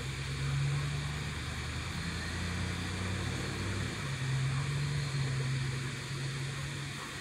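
Low, steady engine-like drone whose pitch shifts slightly about halfway through.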